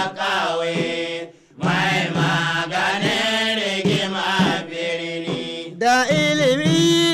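Hausa praise song: a male singer chanting a melodic line over a steady low drone, with a brief break about a second and a half in.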